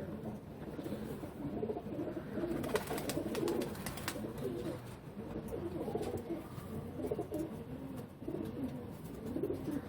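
Domestic pigeons cooing, several low warbling coos overlapping with one another, with a few faint clicks about three seconds in.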